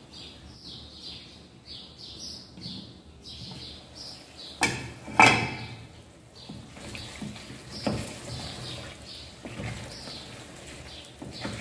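A spoon clattering and scraping in a cooking pot. The loudest clatter comes about five seconds in, with another near eight seconds. A bird chirps over and over in the background, short high chirps a few times a second.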